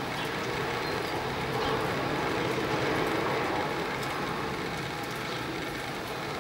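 Steady outdoor background noise: a continuous even rush with a few faint ticks scattered through it.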